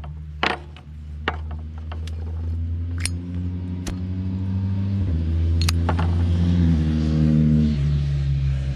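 Car engine running and getting louder, its pitch stepping up and down a few times as it drives, with scattered sharp clicks over it.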